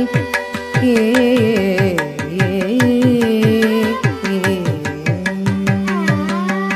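Carnatic devotional music: an ornamented melody that slides between notes over a steady drone, with a quick, even beat of mridangam and ghatam strokes, the deep mridangam strokes dropping in pitch.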